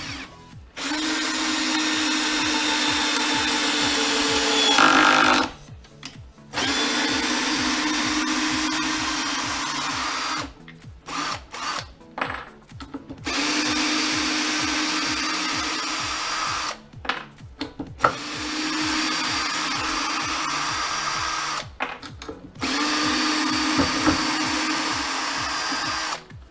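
Parkside cordless drill-driver in screwdriver mode at low speed, driving wood screws into softwood without a pilot hole. The motor runs in five separate spells of a few seconds each, with a steady hum. There are short pauses with clicks between them, and the first run grows louder just before it stops.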